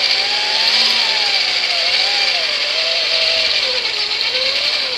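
Radio-controlled Unimog crawler truck's motor and geared drivetrain whining as it drives, the pitch rising and falling with the throttle over a steady gear hiss.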